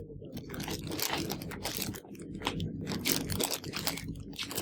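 Packaging crinkling and rustling in short irregular crackles as grocery items are handled.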